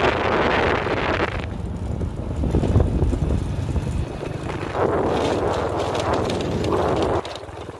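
Motorbike riding along a rough dirt path, its engine running with a low rumble under heavy wind buffeting on the microphone. The wind noise cuts off suddenly near the end.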